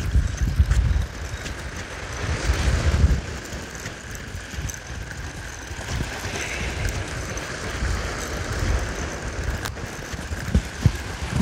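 Wind buffeting the microphone in gusts, loudest in the first few seconds, over the steady wash of surf on the shore.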